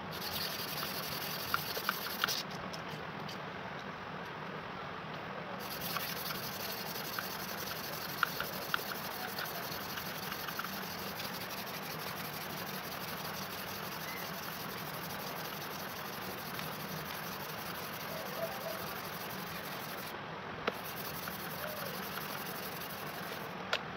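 A small blade scraping rust off a steel knife blade by hand, with scattered light clicks of metal on metal over a steady background noise.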